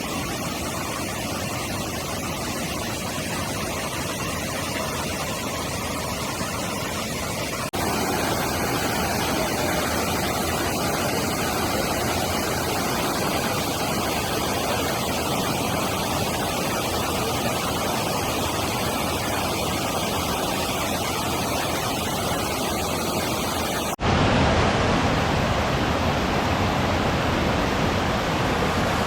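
Rushing river water, a steady even noise, heard in three successive recordings that cut abruptly to a louder take about eight seconds in and again near the end.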